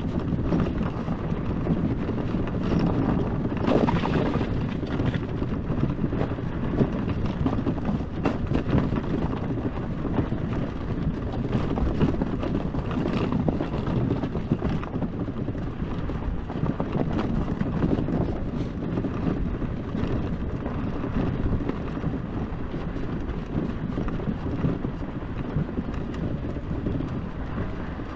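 Electric ATV riding over a rough dirt track: a steady rumble with frequent small knocks and rattles, and wind buffeting the microphone.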